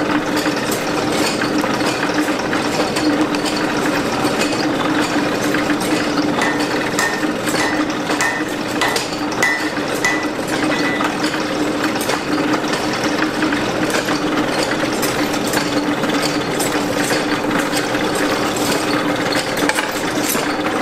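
Hand-cranked geared forge blower running steadily: a continuous whirring hum with light gear clatter as it forces air into a freshly lit coal fire.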